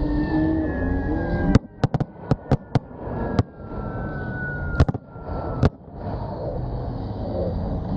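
Ground pyrotechnics going off: a ragged string of sharp firework bangs, about nine in four seconds, starting about a second and a half in. Underneath runs a steady rumble and a high whine that falls slowly in pitch and stops with the last bang.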